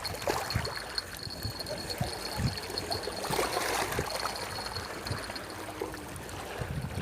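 Water moving and trickling, with scattered soft low thumps and a faint steady high tone.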